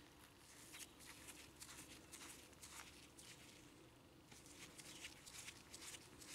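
Faint, irregular scratching and ticking of a screwdriver turning a small screw in the metal end cover of a 1950s Venusberg hand-cranked grinder, over a faint steady hum.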